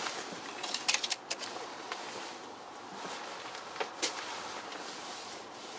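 A few sharp clicks and knocks from hands handling plastic pipes and fittings around a car's diesel fuel filter: a quick cluster about a second in and a single one near four seconds, over a steady faint hiss.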